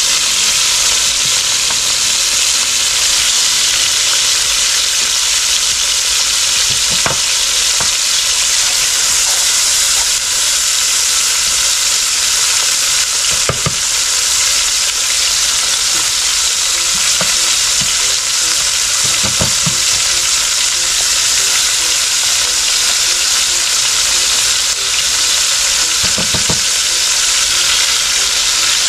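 Turkey neck pieces frying in hot oil in a pot: a loud, steady sizzle, with a few faint knocks.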